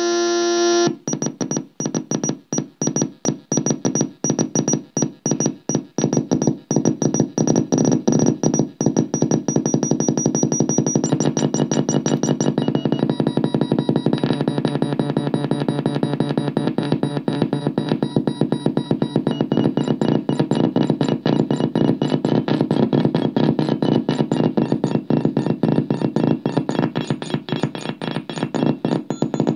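Division 6 Business Card kit synthesizer playing a fast repeating sequence of electronic notes, its pitches and tone shifting several times as the knobs are turned.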